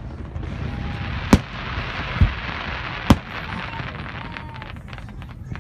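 Aerial fireworks shells bursting overhead: three booms about a second apart, the middle one deeper, over a steady hiss.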